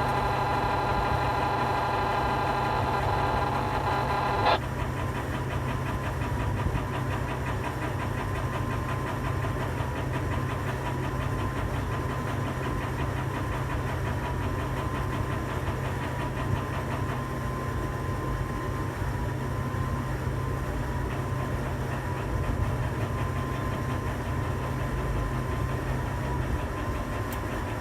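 Tower crane drive machinery heard from inside the operator's cab while a load is hoisted: a steady low hum throughout, with a higher whine of several tones for the first four or so seconds that cuts off with a click.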